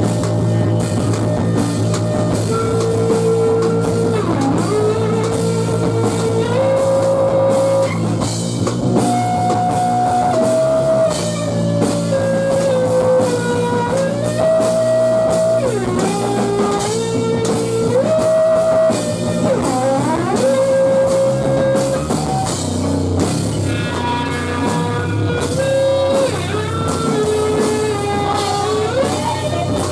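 A live rock band playing loud: electric guitar, bass guitar and drum kit, over a steady bass line and continuous drumming. A lead melody of long held notes slides up and down between pitches.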